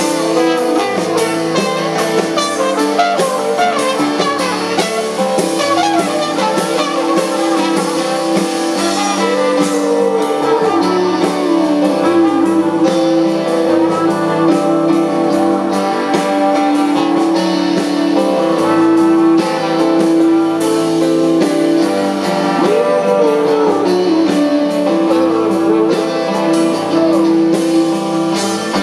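Live band music in a jazzy style: guitar and drums over a long held low tone, with sliding pitched lines and quick cymbal ticks.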